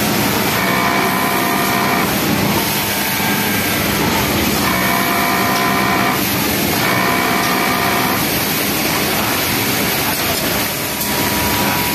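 Pegasus W600 flatlock industrial sewing machine stitching in about four short runs of a second or so each, with a whine while it sews, over a steady loud mechanical hum.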